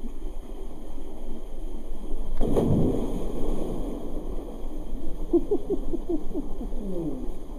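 A person jumps feet-first into a canyon pool: one big, deep splash about two and a half seconds in, then water churning and sloshing as he surfaces. A small waterfall rushes steadily underneath throughout.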